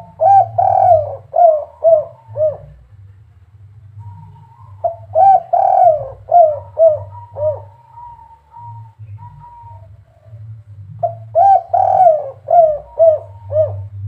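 Caged spotted dove (derkuku) singing, a bird of the 'kuk 3' song type kept by Indonesian hobbyists: three cooing phrases, near the start, about five seconds in and about eleven seconds in, each a run of about six low notes that fall in pitch.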